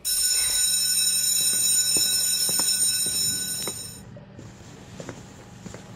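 An alarm bell ringing loudly and steadily, cutting off suddenly about four seconds in; a few faint clicks follow.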